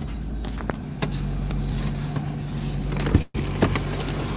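Pickup truck engine running at low speed, a steady low hum heard from inside the cab, with a few light clicks. The sound cuts out for a moment about three seconds in.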